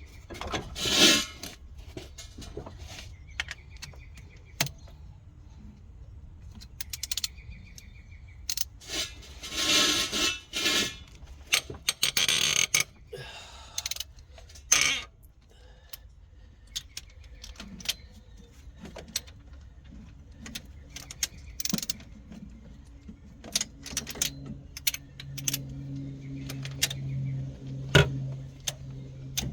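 Metal engine parts and hand tools clinking, tapping and scraping in scattered strokes during an engine teardown, with a few longer scrapes. A low steady hum joins near the end.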